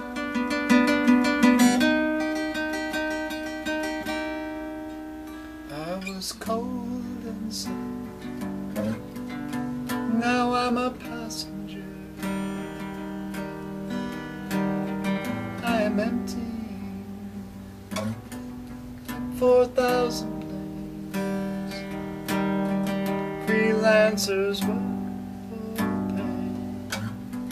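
Solo acoustic guitar played and strummed, its chords ringing and changing every few seconds.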